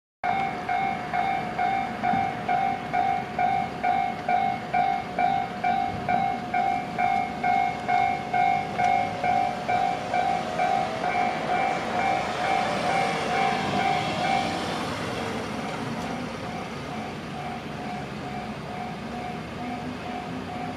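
Japanese level-crossing warning bell ringing in a steady electronic ding-ding, about two strokes a second. An electric train passes through the crossing with a swelling rush of wheel and motor noise that peaks about 12 to 15 seconds in. After that the bell sounds softer.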